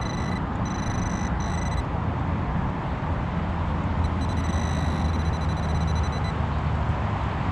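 A metal detector sounds a steady high-pitched electronic tone over a target in a dig hole, twice, each time for about two seconds. A steady low background rumble runs underneath.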